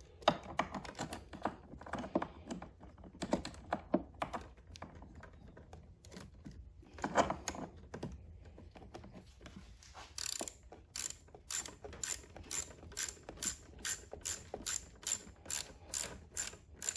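Hand ratchet wrench clicking as it tightens the nuts on the carburetor adapter studs. Scattered clicks and scrapes come first, then from about halfway a steady run of ratchet clicks, about two a second.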